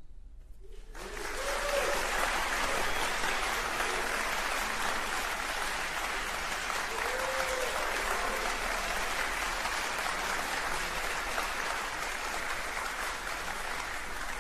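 Audience applause, starting about a second in and holding steady.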